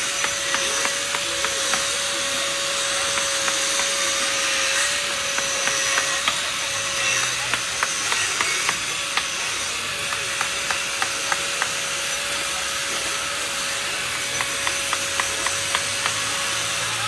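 Hand chisel chipping and scraping at a block of clear ice, a regular run of short sharp strikes about two to three a second.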